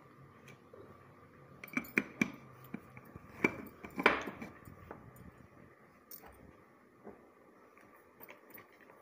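Glass storage jar being closed with its metal-rimmed lid: a few sharp clinks of lid and glass, the loudest about three and a half to four seconds in, then quieter handling of the closed jar.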